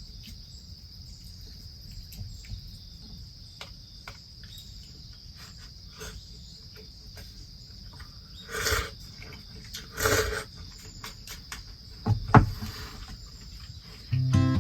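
Autumn crickets chirring steadily in one high, continuous band, with scattered small clicks, two short loud rustling bursts about 8.5 and 10 seconds in, and a sharp knock a little after 12 seconds. Acoustic guitar music starts at the very end.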